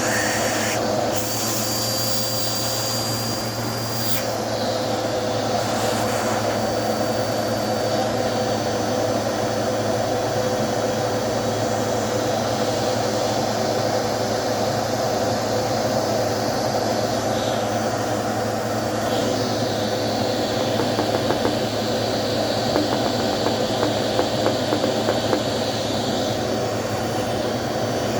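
Dirt Devil vacuum cleaner running steadily, sucking dust out of a vacuum filter. Light ticks and rattles of debris come through in the last third.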